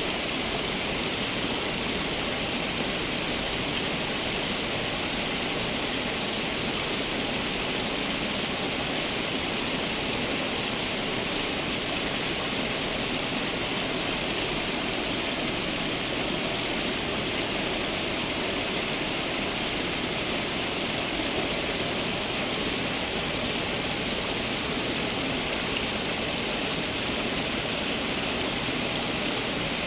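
Garden fountain water splashing in a steady, unbroken rush.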